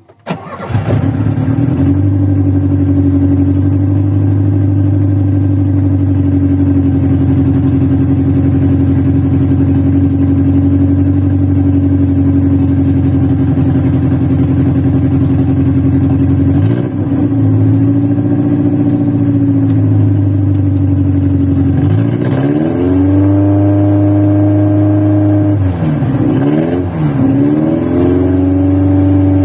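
A VW Voyage's carbureted four-cylinder engine catches about half a second in, then runs at a fast cold idle. Its speed sags and is revved back up once around the middle and twice more near the end. It is a cold start after many days of sitting, and the worn old engine runs rough.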